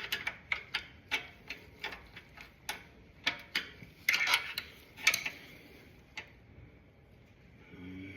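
Hand tools clicking and tapping on metal as a part is worked and pried into place on a motorcycle engine: sharp clicks about three a second for some six seconds, with louder clattering around four and five seconds in, then they stop.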